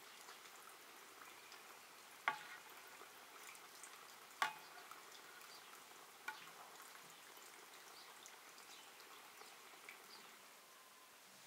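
A metal spoon clinking against an enamel basin and bowl as food is spooned out. There are three short ringing clinks about two seconds apart, the first two loudest, over a faint steady hiss.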